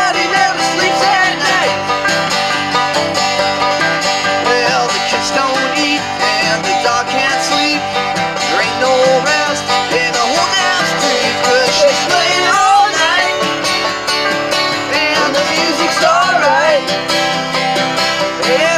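An acoustic guitar and a banjo playing a tune together, continuously.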